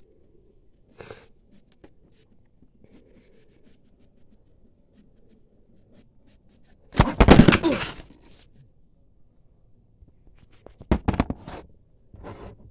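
Pencil scribbling faintly on paper, then a loud burst of noise about a second long around seven seconds in, and a cluster of shorter loud handling knocks and rustles near the end.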